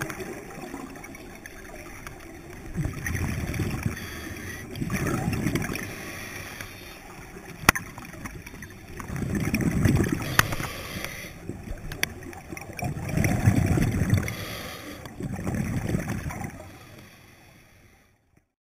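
Scuba regulator underwater: exhaled bubbles gurgling out in five bursts a few seconds apart, with a few sharp clicks between them. The sound fades out near the end.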